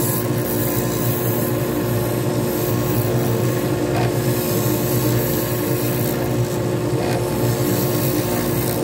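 Lathe running steadily with a turning tool cutting a spinning glitter resin pen blank: a steady motor hum under the continuous scraping hiss of the cut.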